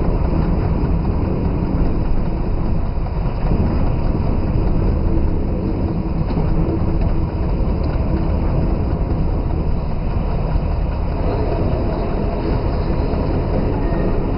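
Diesel engine of a BB 67000-family diesel-electric locomotive running steadily under way at low speed, heard from inside its cab, with a dense low rumble.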